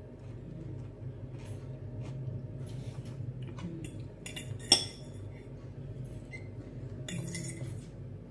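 Metal knife and fork clinking and scraping against glass plates while food is cut. One sharp clink a little under five seconds in is the loudest sound, and a scraping spell follows near the end.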